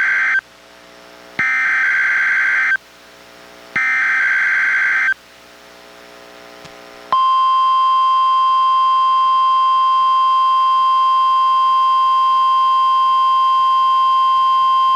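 NOAA Weather Radio Required Weekly Test signal from a weather radio. The end of one SAME digital header burst is followed by two more bursts of warbling data tones, each about a second and a half long with short gaps between them. About seven seconds in, a single steady 1050 Hz warning alarm tone starts abruptly and holds.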